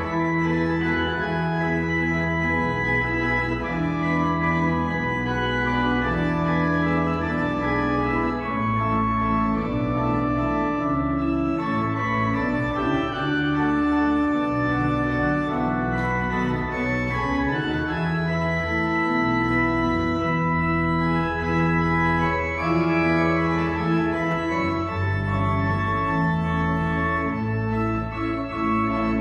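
A church organ plays sustained chords on the manuals, with a deep bass line held underneath on the pedals. The chords change every second or so at a steady volume.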